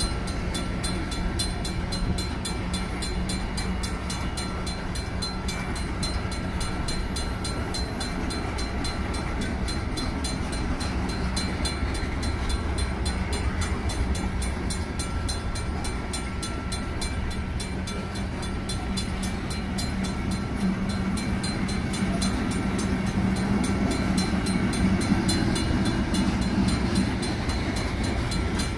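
Freight cars of a long train rolling through a road crossing, wheels rumbling and clacking steadily, a little louder toward the end. Over it the crossing's Safetran mechanical bell rings on in rapid, even strokes.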